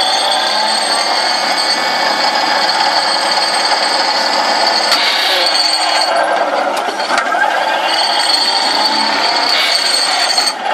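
Excavator-mounted vibro impact ripper (SVR15) working with the excavator's engine and hydraulics running, a loud steady rattling drone with a high whine. It shifts briefly about halfway through.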